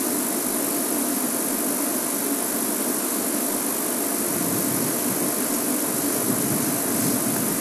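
Steady hiss over the low drone of the game-drive vehicle's engine running. Its low rumble grows about four seconds in.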